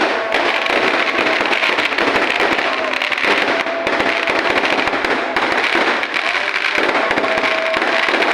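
A dense, continuous barrage of fireworks and firecrackers, crackling and popping without a break. A faint high tone comes and goes over it.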